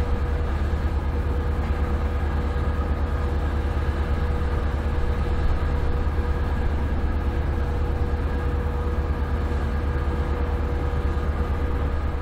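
Ship's engine drone: a steady, deep hum with a few constant higher tones above it, no change in pitch or level.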